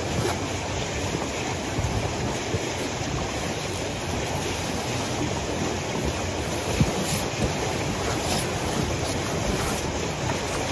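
Heavy snow being pushed off a car's roof with a long-handled tool, sliding and spilling down the car's side in loose falls, over a steady rushing noise.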